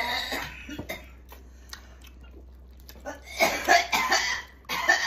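A man coughing in two harsh bouts, a longer one about three seconds in and a shorter one near the end.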